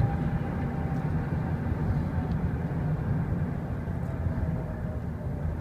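Vehicle engine running with a steady low rumble and a light hiss of noise over it.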